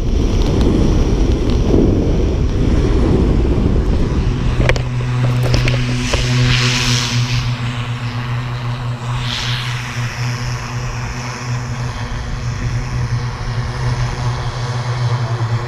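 Wind rushing over the camera microphone under a parachute canopy for the first few seconds, then a steady propeller-plane engine drone from about five seconds in. Two brief hissing swells come near seven and nine and a half seconds.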